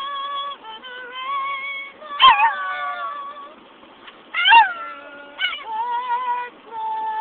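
A dog howling along with a woman singing: long held notes, broken by loud short cries that jump up and fall in pitch about two seconds in and again about four and a half seconds in.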